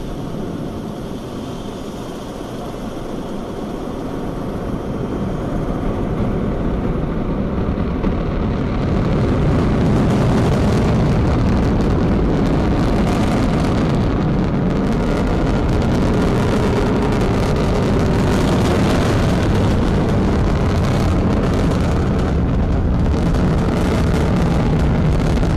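Long March 2C rocket's first-stage engines at liftoff: a low, noisy rumble that grows louder over the first ten seconds or so, then holds steady with a ragged crackle as the rocket climbs.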